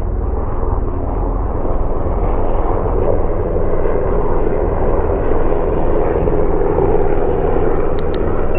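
Helicopters passing overhead, loud and steady, with a pulsing low rotor beat under the engine and blade noise.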